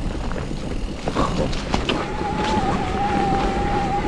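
Electric mountain bike riding a dirt trail: tyres rumbling over the ground with scattered clicks and rattles from the bike, and from about two seconds in a steady whine from the mid-drive motor.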